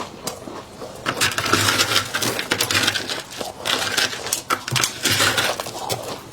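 Fluffy freezer frost crunching in waves, a dense crackle studded with sharp clicks.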